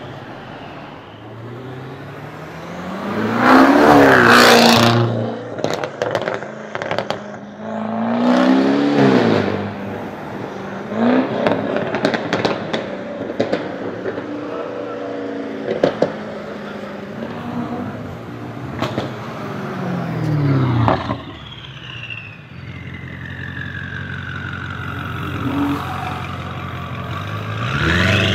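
Loud sports-car exhaust, chiefly the twin-turbo V8 of a widebody BMW 650i Gran Coupé: several hard pulls where the engine revs up and drops off, with sharp exhaust pops and crackles between them. Near the end, a whine falls away as a car passes, and the revs rise again.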